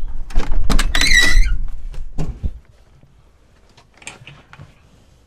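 Kenworth semi-truck cab door being unlatched and swung open, with a squeaky hinge creak about a second in, over a low rumble and several clicks and thumps as someone climbs into the cab. The noise dies down after about two and a half seconds, leaving a few faint clicks.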